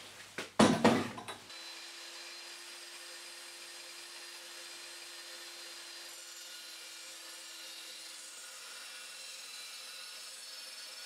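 A timber block studded with nail heads knocking against a chop saw's steel vise as it is set in place: a few loud clunks in the first second and a half. Then a faint, steady hum and hiss.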